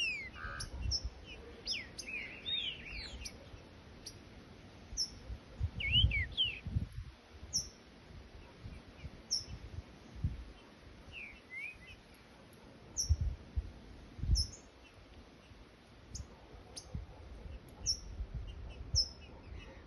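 Green-winged saltator (trinca-ferro) singing short phrases of sliding whistled notes a few times, with thin high falling chips from a bird repeating about once a second. Several low thumps also sound on the microphone.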